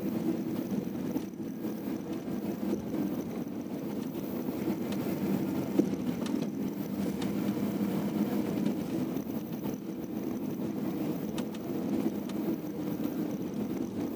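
Steady engine and road rumble of a moving road vehicle, heard from inside the vehicle. A brief sharp click sounds about six seconds in.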